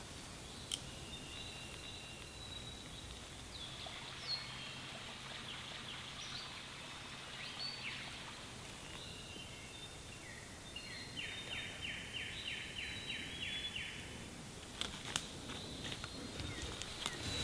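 Several songbirds singing in spring woodland, with overlapping whistled phrases. About two-thirds of the way in, one bird gives a run of evenly repeated notes at about four a second. A few sharp clicks come near the end.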